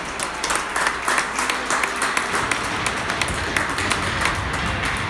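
Scattered applause and tapping echoing in an ice rink: many sharp, irregular claps.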